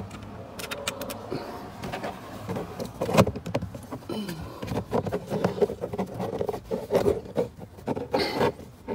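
Handling noise of a plastic Pedal Commander module being pushed into its connector under the dashboard: a quick run of clicks, a sharper knock, then irregular plastic clatter and rubbing.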